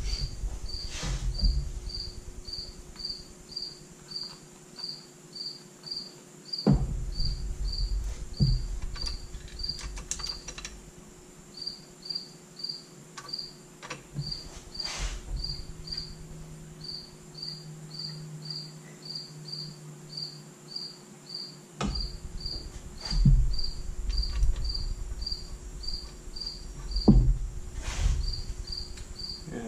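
A cricket chirping: a steady run of short, high chirps, two or three a second, with a couple of brief pauses. Occasional knocks and clunks from hands working on parts in the engine bay, the loudest of them late on.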